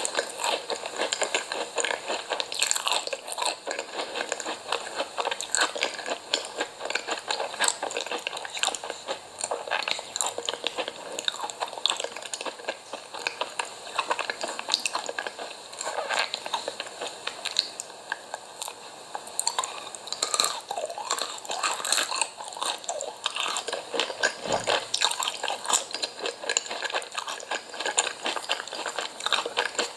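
Close-miked eating: crunchy food being bitten and chewed, with dense irregular crackling crunches throughout and some wet squishy chewing.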